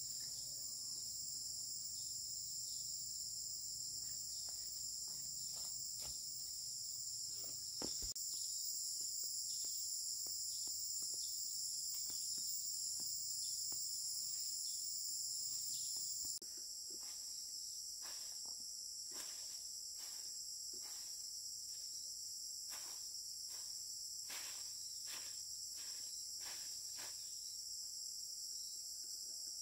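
Steady, high-pitched chorus of insects trilling together, with scattered light clicks and taps that grow more frequent in the second half. The chorus drops a little in loudness about halfway through.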